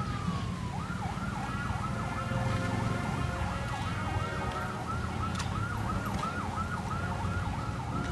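Siren going from a steady tone into a fast up-and-down yelp, about three cycles a second, over a low engine or traffic rumble.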